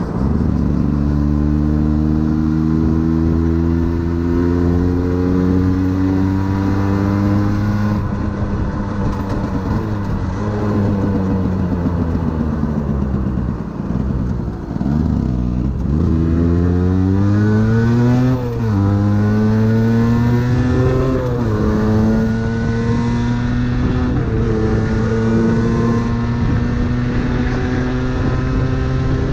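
Aprilia 50cc motorcycle engine under way. Its pitch holds fairly steady, then falls as the bike slows near the middle. It then revs up in pitch, drops back twice at quick upshifts in the second half, and settles into a steady cruise.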